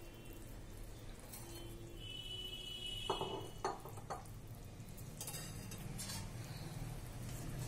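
Metal spoon clinking and scraping against a metal kadai as boiled eggs are moved into a simmering tomato gravy, with a few light knocks about three to four seconds in, over a faint steady hum.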